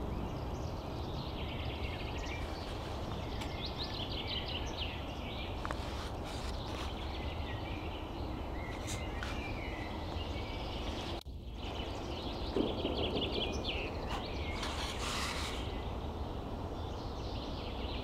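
Songbirds singing in a pine forest, repeated short trilled phrases, over a steady low background rumble.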